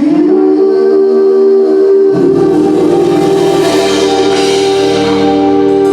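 Gospel music holding one long sustained chord, with a lower bass part coming in about two seconds in.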